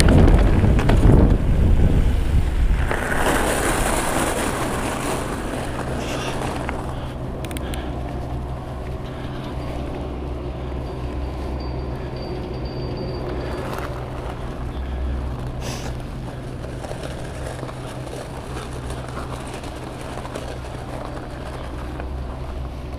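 Wind buffeting the camera microphone and mountain-bike tyres rumbling on a dirt trail for the first few seconds, fading out as the bike slows and stops. After that, a steady low hum carries on under faint background noise.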